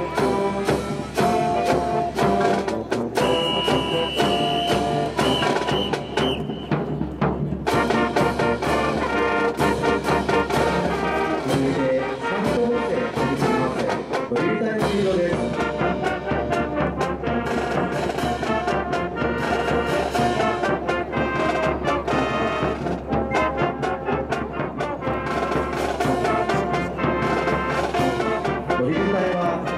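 Marching brass band playing: trumpets, saxophones and sousaphone over bass drum, snare drums and cymbals keeping a steady beat. A high note is held for a few seconds near the start.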